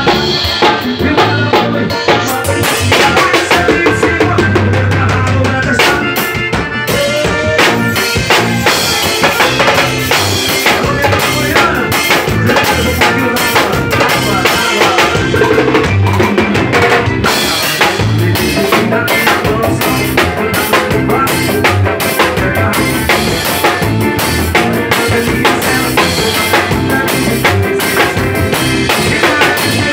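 Drum kit played live with a band: kick, snare and cymbals keep a steady, busy beat under other pitched instruments.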